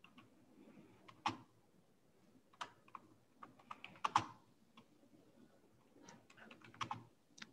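Computer keyboard being typed on: faint key clicks in a few short, uneven runs with pauses between them.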